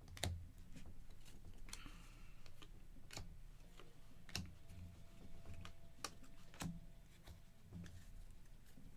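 Chromium trading cards being handled and set down into piles on a table: scattered light clicks and soft taps, roughly one a second.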